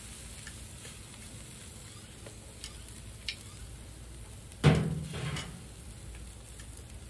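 Tri-tip sizzling steadily on the grate of a charcoal kettle grill over hot coals, with a few small crackles. About two-thirds through comes one loud, short thump.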